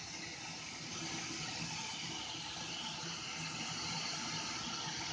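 Stationary 0-4-0 saddle tank steam locomotive standing at rest, with a steady hiss and a simmering, boiling sound of steam.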